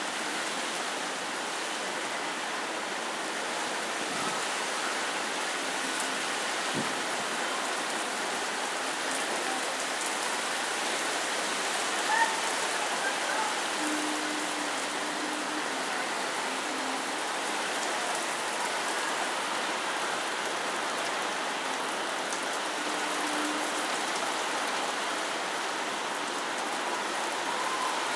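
Steady rain falling, an even continuous hiss, with one short sharp knock about twelve seconds in.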